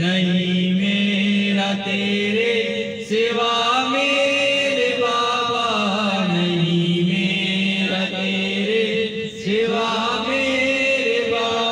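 Men's voices chanting a devotional Sufi melody, holding long notes that slide slowly up and down, with brief pauses for breath twice.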